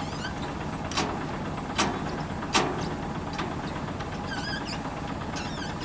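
Semi-trailer landing-gear jack being wound down by its hand crank, clicking about once every 0.8 s over the steady low rumble of an idling truck engine.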